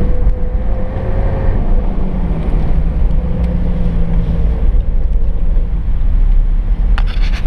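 Off-road vehicle driving over sand, heard from inside the cabin: a steady engine drone and low rumble, with a short clatter of knocks about seven seconds in.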